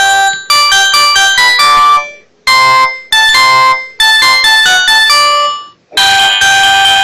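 Ringtone melody of an LG RD2030 CDMA mobile phone: quick electronic keyboard-like notes in phrases, each phrase fading out into a short silence, twice. About six seconds in, a different, fuller tune starts.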